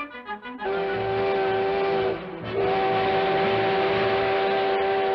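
Cartoon steam-locomotive whistle blowing two long steady blasts, the second longer, over a low rhythmic chugging. A few quick musical notes come just before the first blast.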